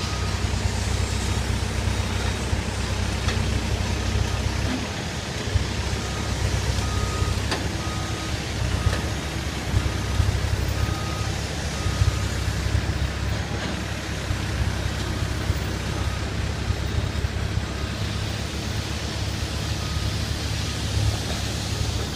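Engine running steadily with a low drone, with a faint high beep repeating on and off through the middle.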